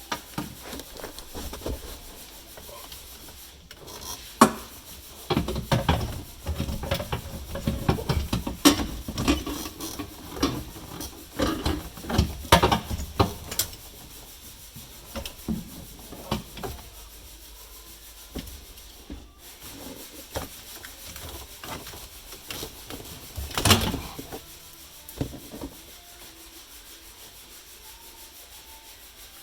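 Irregular clunks, knocks and scraping of tools and metal parts while a welded-up clutch pedal assembly is worked back into place under a car's dashboard. The knocking is busiest in the first half and comes again in a short burst later on.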